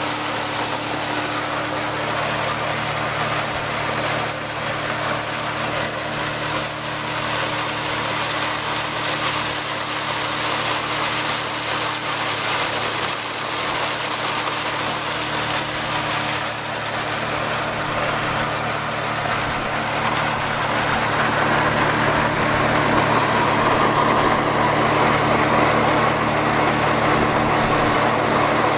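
Silo-filling machinery running steadily: a John Deere 4430 six-cylinder diesel tractor driving a Case IH 600 forage blower, with chopped corn silage rushing through the blower pipe. The rushing noise grows louder about two-thirds of the way in.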